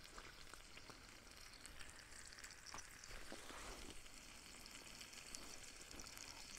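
Faint sizzling of pork and apples frying in a camp skillet over a small wood fire, with a few soft pops.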